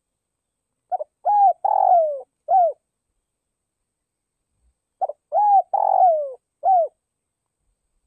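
Spotted dove cooing: two calls about four seconds apart, each a quick stuttered double note followed by three coos, the middle coo the longest and falling in pitch.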